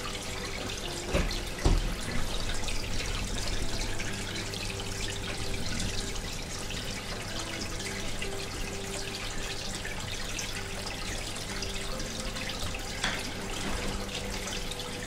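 Steady running water trickling and splashing, with a faint low hum under it. A brief low thump sounds about one and a half seconds in.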